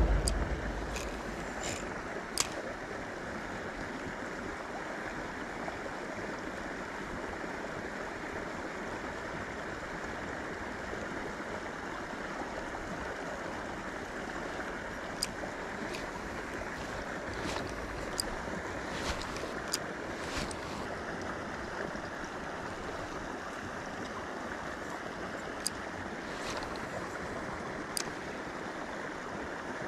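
Steady rushing of flowing water in a small channel, with a dozen or so short, sharp clicks scattered through it.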